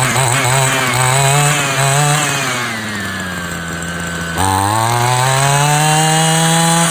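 Small two-stroke grass cutter engine being revved. Its pitch rises, drops back toward idle, then climbs sharply again about four seconds in and holds at high revs.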